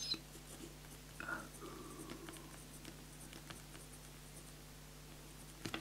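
Pen writing on a legal pad: faint scratching and ticking of the nib on paper as a line of letters is written.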